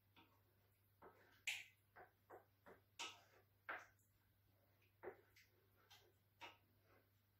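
A spoon knocking and scraping against a frying pan while stirring, about ten light, irregular clicks and taps.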